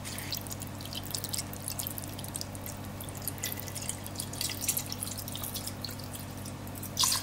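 Chicken broth being poured into a pressure cooker's metal inner pot over dry fettuccine, trickling and splashing in many small irregular drips.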